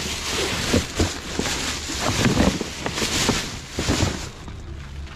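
Plastic trash bags and cardboard rustling and crinkling as they are shifted around inside a dumpster, a loud, uneven rustle with several stronger surges.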